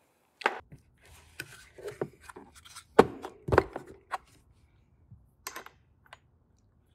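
A scattered series of short clicks and taps as a metal washer and bolt hardware are handled and set onto a bolt through the plastic floor of a Pelican case, the loudest around three seconds in.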